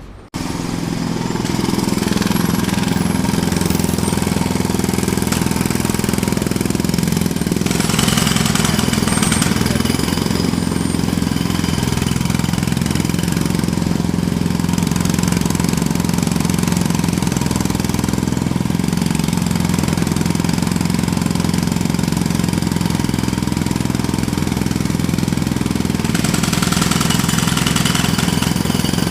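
Jackhammer hammering continuously in a rapid, even rattle over a low machine hum, starting abruptly just after the beginning. Twice there is a brief stretch of louder hiss.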